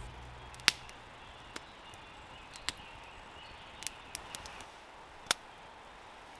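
Campfire crackling: about ten scattered sharp pops and snaps of burning wood, the loudest just under a second in and again about five seconds in.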